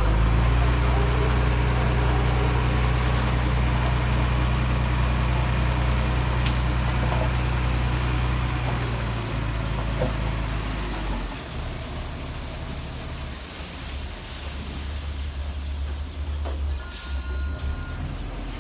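Heavy diesel engine running steadily close by, then dropping away after about eleven seconds to a lower, quieter rumble.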